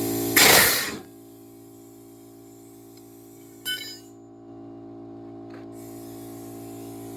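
Tire bead seater dumping a sudden blast of air into a 20-inch tire about half a second in, lasting about half a second, followed by a short click near four seconds in and a faint hiss. The blast fails to seat the bead.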